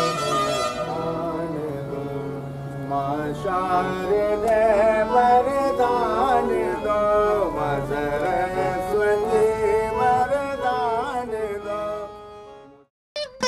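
Indian classical-style background music with a gliding melody over a steady low drone, fading out near the end.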